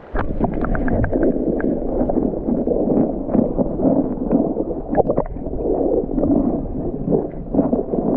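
Water heard from a camera held underwater: a muffled, steady rush and gurgle scattered with small clicks and pops, beginning abruptly as the camera goes under.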